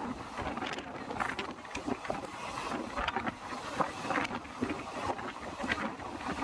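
Indian Railways express train under way: a steady rumble with irregular rattles and knocks, and wind buffeting the microphone.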